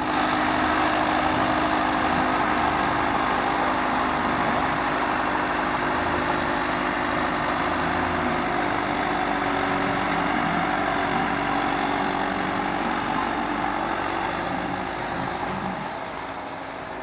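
Harbor trash skimmer boat's engine running steadily, with rushing water from its wake, fading somewhat near the end as the boat moves away.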